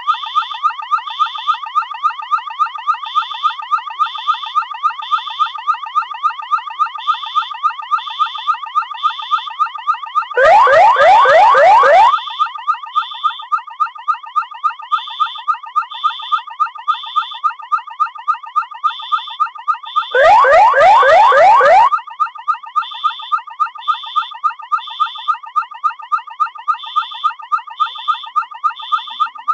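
Electronic alarm siren sounding without a break: a fast-repeating warble with higher beeps in groups of three, and two louder sweeping bursts of about a second and a half each, about ten and twenty seconds in.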